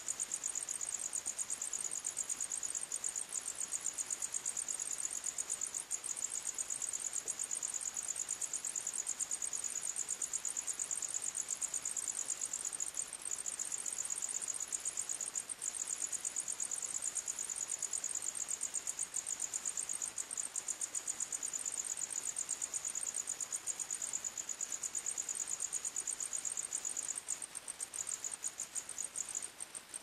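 Crickets chirping in a fast, continuous, high-pitched trill. A slightly higher second song stops a little past halfway, and the chirping breaks up and gets quieter near the end.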